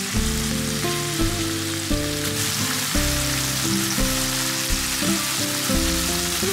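Yogurt-marinated chicken breast pieces sizzling steadily in hot olive oil in a frying pan, with soft melodic background music underneath.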